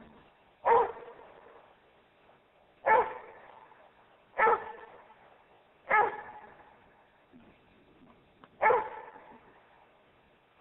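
Rhodesian Ridgeback barking five times, single deep barks spaced about one and a half to three seconds apart, each trailing off with a short echo.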